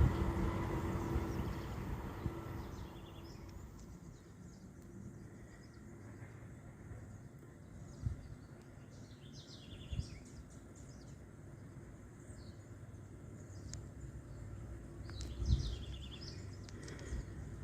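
Diesel locomotive engine noise fading away over the first few seconds, leaving birds chirping in short bursts, with a few brief dull thumps.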